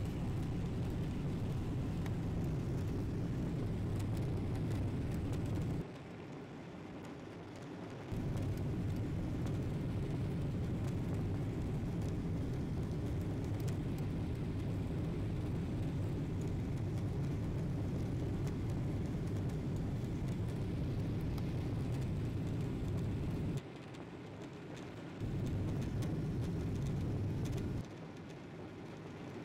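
Steady engine and airflow noise heard inside the cabin of a Boeing 777-200 with GE90 engines as it climbs out after take-off. The noise drops abruptly lower three times, each time for a second or two.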